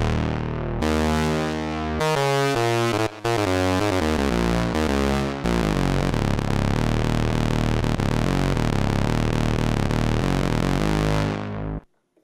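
Korg minilogue analog synthesizer playing an organ-style patch: sustained chords over a low bass line. It cuts off abruptly near the end.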